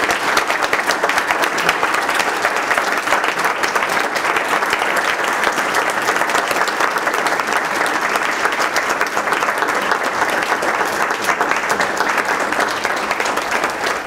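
Audience applauding: many hands clapping in a steady, dense patter that holds throughout.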